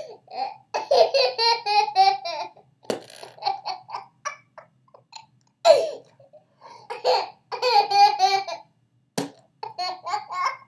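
Baby laughing in two long fits of rapid, pulsing giggles. Short sharp bursts between the fits are the dad's funny noise that sets him off.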